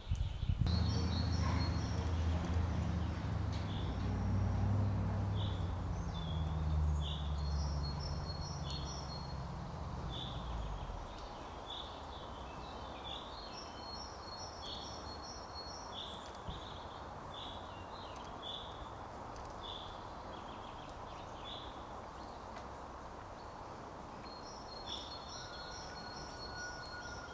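Songbirds calling outdoors: a short high note repeated about once or twice a second, and a quick high run of notes recurring every five to six seconds. A low droning hum sits underneath for the first ten seconds or so, then fades.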